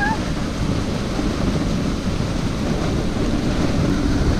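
Steady rushing noise of a moving dogsled: wind buffeting the camera microphone and the sled's runners sliding over packed snow.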